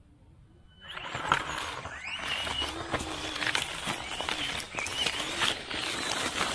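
Axial SCX24 RC crawler driving: its small electric motor and gears whine, rising and falling with the throttle, while the tyres crackle and snap over dry leaves and twigs. It starts about a second in, after near silence.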